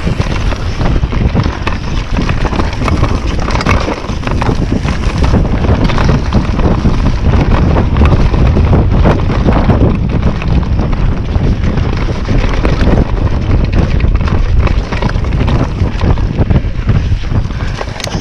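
Wind buffeting a GoPro microphone on a fast mountain bike descent, with the tyres rolling over leaf-covered dirt singletrack and the bike knocking and rattling over bumps.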